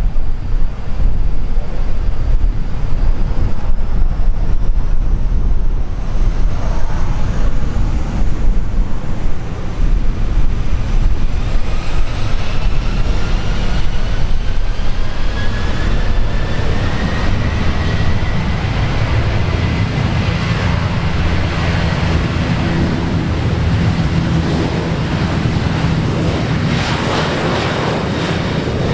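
Boeing 737 jet engines running on the runway under a steady low rumble, with a whine that rises in pitch over several seconds about halfway through as the engines spool up for the takeoff roll. Wind buffets the microphone.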